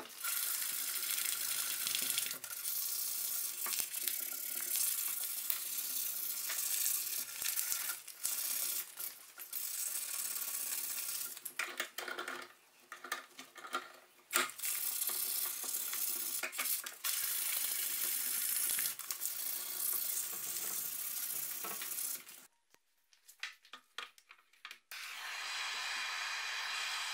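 Hands rubbing on a wooden machete handle clamped in a vise make a scratchy hiss in stretches of a few seconds, with short breaks. It cuts off about 22 seconds in, and after a brief quiet gap a steadier, different hiss takes over near the end.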